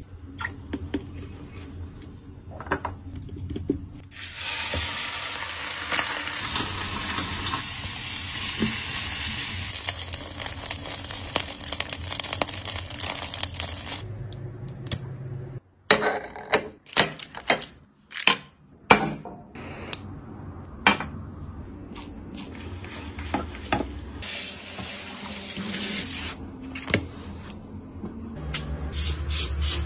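Kitchen work: about ten seconds of steady hiss, like food frying or a tap running, then a quick run of sharp clicks and knocks of dishes and utensils, then quieter rubbing.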